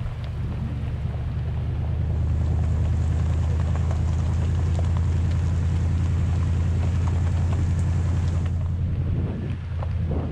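Toyota Tundra TRD Pro pickup driving on a gravel forest road, heard from a camera mounted outside the truck. A steady low rumble of the truck and its tyres with wind buffeting the microphone and light ticks of gravel under the tyres; it eases off near the end.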